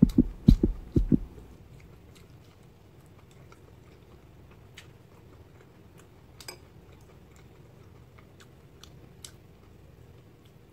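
Someone chewing a mouthful of egg dumpling, heard as a quick run of low thumps for about the first second, after which only faint scattered clicks remain.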